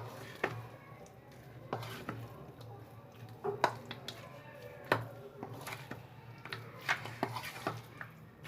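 A spoon knocking and scraping against a bowl while chicken is mixed into its marinade, in irregular clinks, several close together near the end. A low steady hum sits underneath.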